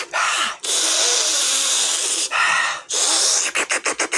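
A person blowing hard straight into the phone's microphone: long loud blasts of hiss with short breaks, then a quick run of short puffs near the end.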